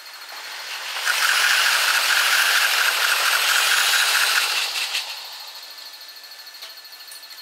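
A 15-car Yokosuka Line electric commuter train passing, its rush and wheel rattle sped up six times, so it sits high with no low rumble. It swells about a second in and dies away just under five seconds in.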